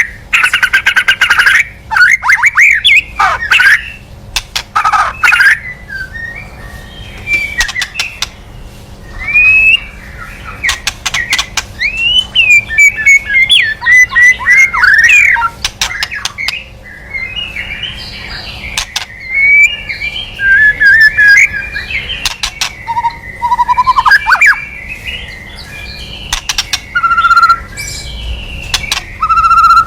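White-rumped shama singing a varied song of whistled, gliding phrases broken by runs of dry, rapid rattling 'kretek' chatter. This is the agitated chatter used to provoke a rival male shama.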